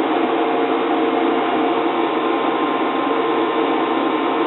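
Steady hiss with a faint constant hum of several tones underneath, unchanging throughout.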